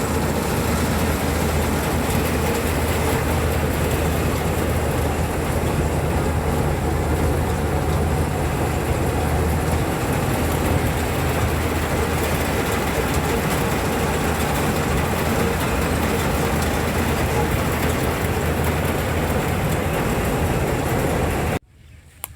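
Rice combine harvester running steadily in the field, its engine hum under the noise of the cutting and threshing machinery. The sound cuts off abruptly near the end.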